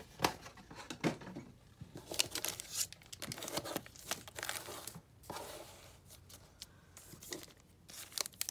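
Foil wrappers of Upper Deck hockey card packs crinkling and rustling in short, irregular crackles as the packs are handled and stacked on a table.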